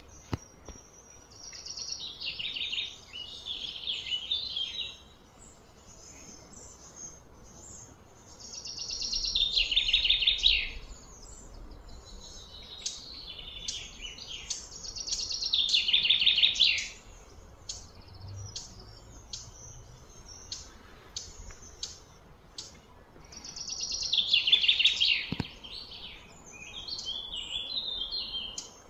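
High-pitched chirping calls from wild animals, in four phrases of about two seconds that swell and then stop short, with scattered short chirps between.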